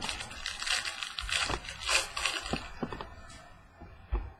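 Crinkling and rustling of plastic as trading cards and their clear plastic holders are handled, heaviest in the first two and a half seconds, with a few light clicks and a soft thump on the table just after four seconds.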